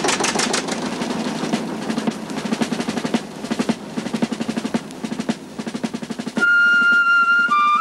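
Small diesel locomotive engine just started after decompressing, running with a rapid, even exhaust beat. Near the end, flute music comes in.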